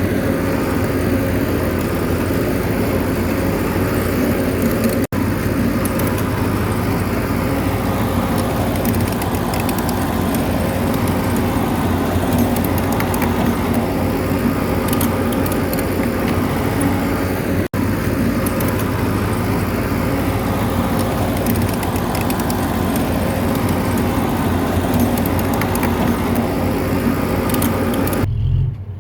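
Bulldozer's diesel engine running steadily under load, with scattered clanks and clicks from the tracks and blade. The sound drops out for an instant twice, about five seconds in and past halfway.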